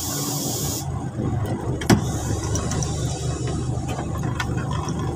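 10-wheeler truck's diesel engine idling steadily, heard from inside the cab. A hiss of air cuts off suddenly about a second in, and there is a single click near the two-second mark.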